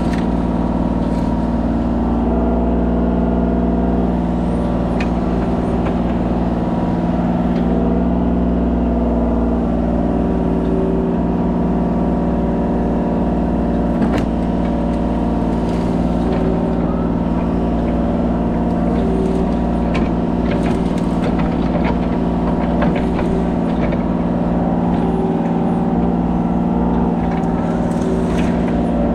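Kubota mini excavator's diesel engine running steadily at working speed, with scattered sharp knocks and clanks, the clearest about halfway through.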